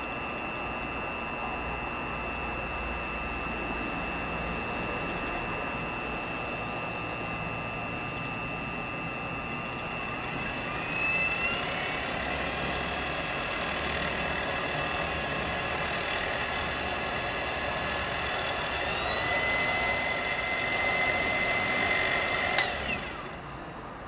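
Wood lathe motor whining steadily as it spins holly pen blanks on a mandrel during CA finishing. Its pitch steps up twice, about halfway and again a few seconds before the end, as the speed is raised. Then it is switched off with a click and the whine falls away as it winds down.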